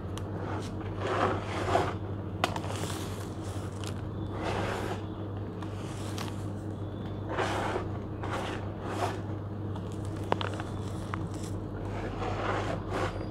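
A dusty charcoal-and-sand mix with small white stones is crumbled by hand and falls in gritty showers into a plastic tub. There are about six separate pours, with a couple of sharp clicks among them.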